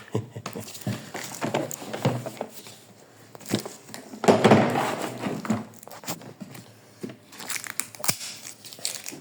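Plastic seal and packaging crinkling and tearing as a sealed cardboard box is cut and pulled open, with irregular rustles and clicks and a louder rip about four seconds in.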